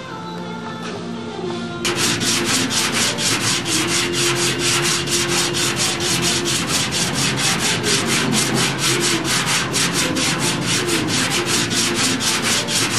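Sandpaper on a hand block scraped back and forth over the primed body of a 1937 Packard 120's rear fender, in quick regular strokes about four a second, starting about two seconds in. This is the block-sanding stage of finish preparation before paint.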